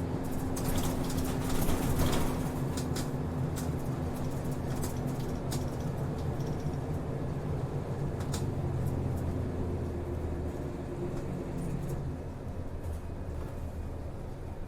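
Route bus heard from inside the cabin while under way: steady engine drone with light rattles and clicks from the body. The engine note drops and eases off about twelve seconds in.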